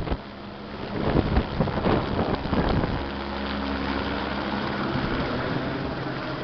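Helicopter turbine and rotor noise, an uneven rumble for the first few seconds that settles into a steady drone, with wind buffeting the microphone.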